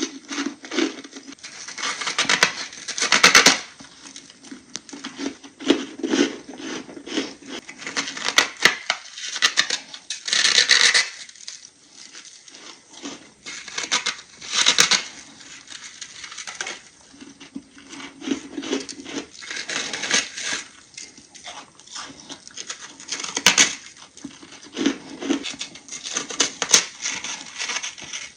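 Close-miked biting and crunching of thin chunks of ice, crackling and splintering in repeated waves of crunches.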